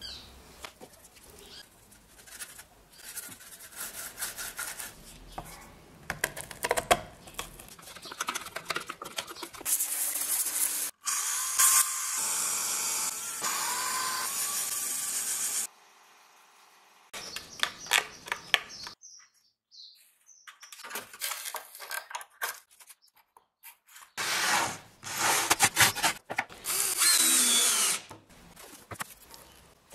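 Workshop power tools. At first there are short, irregular handling noises. Then a handheld power sander runs steadily for about five seconds and stops. Near the end a cordless drill runs in several short bursts, drilling into wood.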